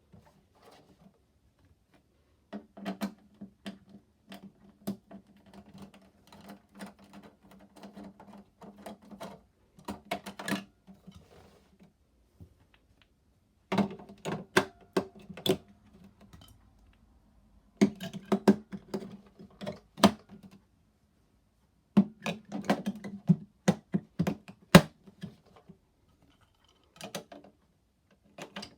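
Toy washing machine running in starts and stops: a low hum with rapid clicking and rattling, in about four bursts of a few seconds each with short pauses between.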